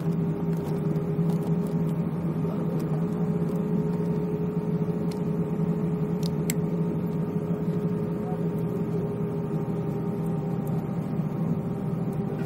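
Steady drone inside the cabin of a JetBlue Airbus A320 after landing, with a few faint clicks about six seconds in.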